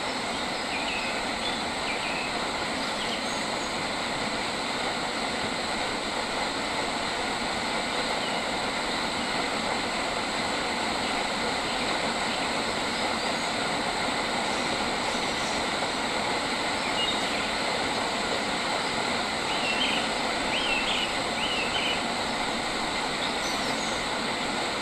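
Outdoor nature ambience: a steady, even rushing hiss throughout, with a few short bird chirps near the start and a quick run of them about twenty seconds in.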